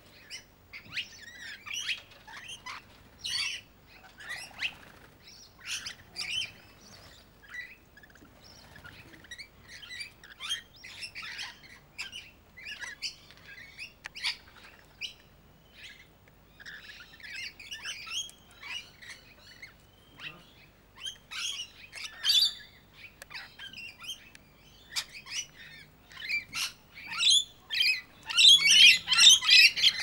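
Rainbow lorikeets chattering, a steady run of short, irregular twittering calls from several birds, swelling into a louder, crowded burst of calls near the end.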